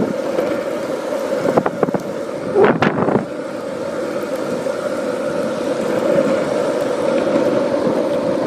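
Longboard's 70 mm urethane wheels rolling fast over asphalt: a steady rolling rumble with wind on the microphone and a few brief knocks about two to three seconds in.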